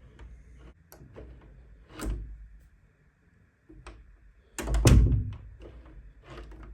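Door handle and latch being worked: a series of clicks and rattles, with a thump about two seconds in and a heavier thunk about five seconds in, as of the door shutting. No squeak is heard.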